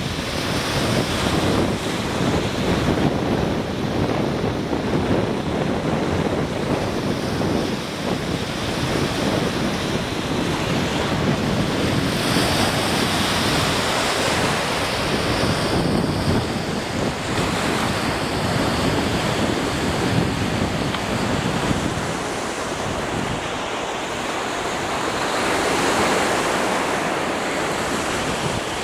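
Lake Michigan waves washing onto a sandy shore, with wind buffeting the microphone in a steady low rumble; the surf swells louder a couple of times.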